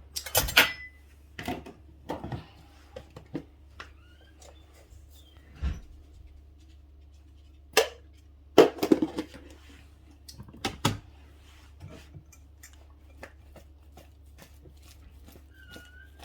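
Scattered knocks and clatters of kitchen utensils and cookware being handled, a few louder ones among many light clicks, over a faint steady low hum.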